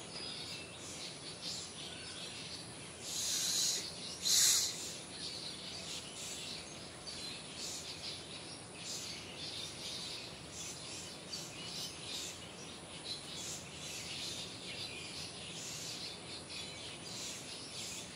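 Outdoor daytime ambience of small birds and insects: many short, scattered high chirps, with two brief, louder noisy bursts about three and four and a half seconds in.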